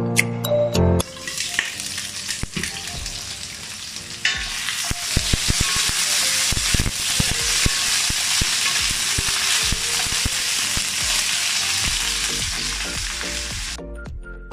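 Diced vegetable pieces frying in hot oil in a stainless steel wok, sizzling steadily and louder from about four seconds in, with scattered clicks as a wooden spatula stirs them. The sizzling cuts off shortly before the end.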